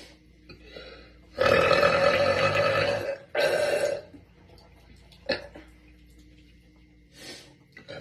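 A young woman burping on purpose: one long, loud burp of about a second and a half, followed right after by a shorter second burp.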